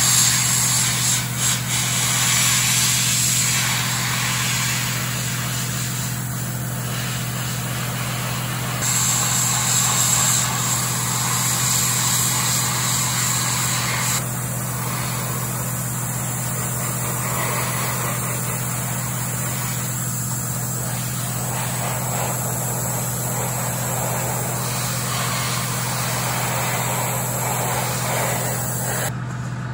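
Airbrush spraying thinned primer: a hiss of air and paint that swells and eases as the trigger is worked, with a change partway through, over a steady low hum.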